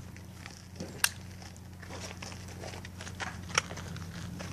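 Two sharp clicks from a pistol being handled, about a second in and again about three and a half seconds in, with a few fainter ticks, over a steady low hum.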